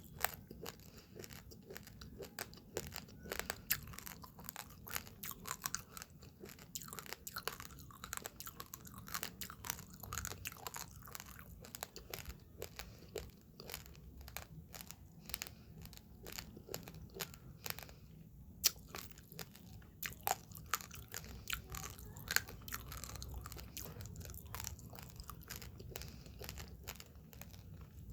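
Raw, uncooked rice grains being crunched between the teeth, a dense, irregular run of sharp little cracks as the grains break, heard close up.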